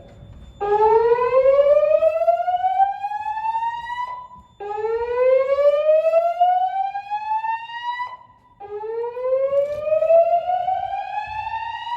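Gentex fire alarm speaker strobes sounding the slow whoop evacuation tone from a Notifier NFS2-640 voice system. Three loud rising sweeps, each about three and a half seconds long, with short gaps between them.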